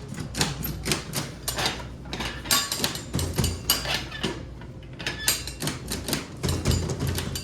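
Many quick, irregular clicks and clacks of quarters and a coin-operated vending machine's coin mechanism, over a low steady hum.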